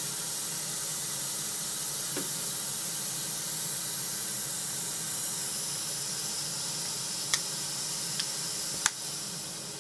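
Steady hiss of a record-cutting lathe's swarf vacuum drawing air through its suction tube. Three sharp clicks come near the end, and after the last one the noise begins to wind down.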